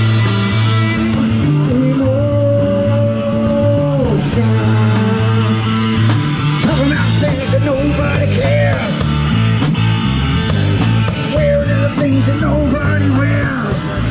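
Live rock band playing through small amplifiers: electric guitar, a drum kit with cymbals ticking steadily, and singing. Long held notes give way about halfway to a wavering, bending melody line.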